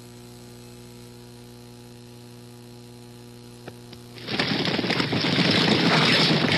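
Steady electrical mains hum with a stack of even overtones, with no other sound over it. About four seconds in, a loud, dense rushing noise takes over.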